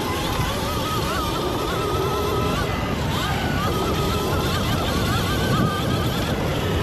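Sur-Ron Light Bee electric dirt bike with an EBMX XLB-60 motor and X-9000 controller ridden hard: a high electric-motor whine that climbs and wavers with the throttle, dipping briefly about three seconds in, over a heavy rush of wind and track rumble.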